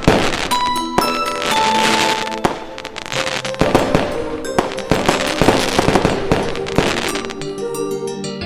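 Fireworks bursting: repeated bangs and dense crackling, thickest in the middle, over background music with held notes.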